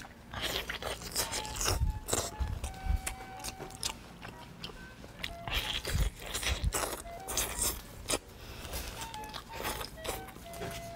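Close-miked biting and chewing of a large braised chicken drumstick, a run of irregular wet bites and chews one after another, over light background music.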